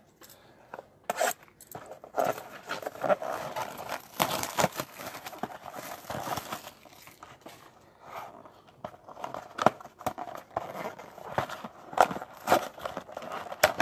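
Cardboard trading card box being pulled and torn open by hand, a box that does not come open easily: crinkling, tearing and rustling broken by many short sharp knocks and clicks.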